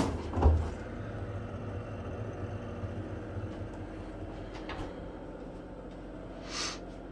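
Refrigerator door pulled open, the seal letting go with a dull thump, followed by a low rumble of handling noise for a few seconds. A short soft swish comes near the end.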